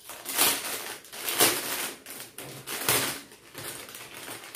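Plastic packaging rustling and crinkling in a few irregular bursts as a silver jewellery set is handled and unwrapped by hand.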